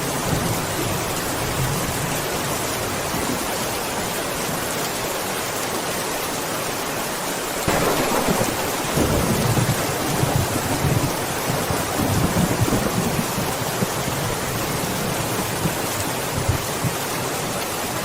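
Steady rain falling, with a sudden clap of thunder a little before halfway that rolls on as a low rumble for several seconds before dying away.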